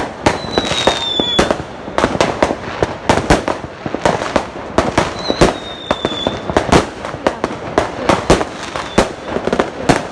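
Firecrackers going off in a rapid, irregular string of sharp bangs, with two high whistling tones that fall slightly, one about a second in and one about five seconds in.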